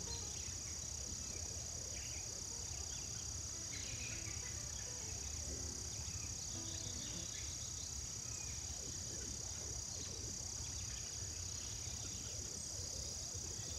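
Late-summer woodland chorus: a steady high-pitched insect trill from crickets or katydids, with short bird calls and chirps scattered through it, over a low rumble.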